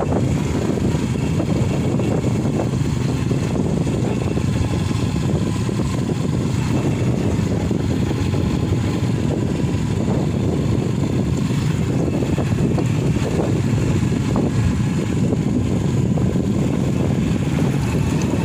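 Steady rumbling rush of a motorcycle ride: wind buffeting the microphone over the running motorcycle engine.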